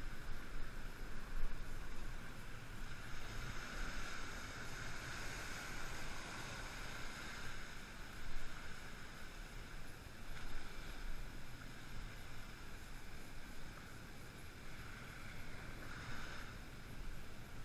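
Shallow sea surf washing and foaming over rocks, with wind noise on the microphone; the wash swells louder a few seconds in and again near the end.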